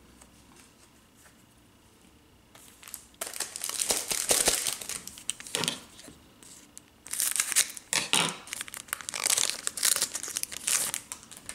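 Shiny foil wrapper of a hockey card pack crinkling as it is handled and pulled open by hand. After a couple of quiet seconds it comes in two spells of crackling.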